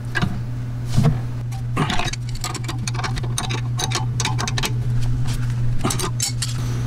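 A ratchet wrench clicking in quick, irregular runs as it turns a rear brake caliper bolt on a Mercedes CLA, over a steady low hum.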